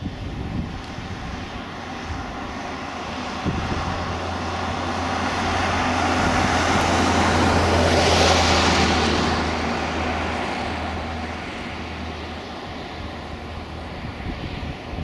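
Piper PA-31T Cheyenne II twin turboprop, with Pratt & Whitney PT6A engines, flying past on approach. A low, steady propeller drone and a rushing engine noise swell to a peak about eight seconds in, then fade as it moves away.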